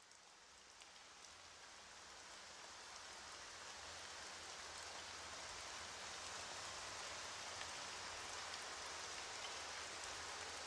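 Steady rain, faint, fading in slowly from about a second in and swelling gradually, with scattered ticks of individual drops.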